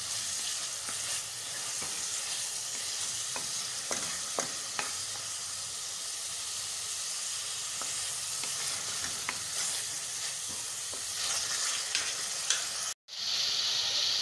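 Boneless chicken pieces sizzling as they fry in oil in a metal pan, turned with a wooden spoon that scrapes and taps against the pan now and then. The sound cuts out for an instant near the end, then the sizzle returns brighter.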